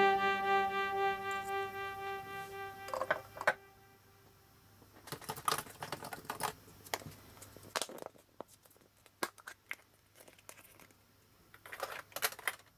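Electronic background music dies away over the first few seconds. It is followed by scattered light clicks and crinkles of small plastic toy eggs and wrappers being handled and opened.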